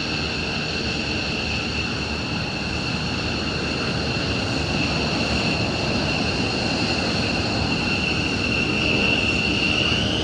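McDonnell Douglas F-15 Eagle fighter jets taxiing on their twin turbofan engines: a steady high-pitched jet whine over a broad rush of engine noise. The whine rises in pitch near the end.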